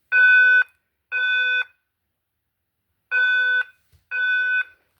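Fire alarm speaker strobe sounding a steady electronic alarm tone in the temporal-three evacuation pattern: half-second beeps a second apart in groups of three, with a longer pause between groups. Here there are two beeps, a pause of about a second and a half, then two more, with the next beep starting at the end. It is not at full volume.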